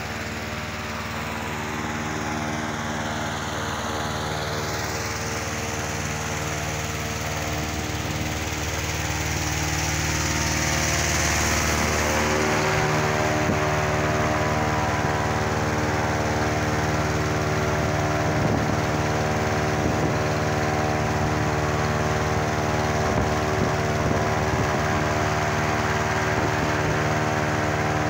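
Petrol-engine inflator fan running steadily, blowing cold air into a hot-air balloon envelope laid out on the ground during cold inflation. It gets louder about ten seconds in.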